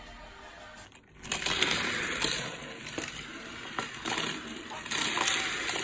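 Small die-cast toy cars rolling and rattling down the plastic spiral ramps of a toy parking garage, with scattered clicks, starting about a second in.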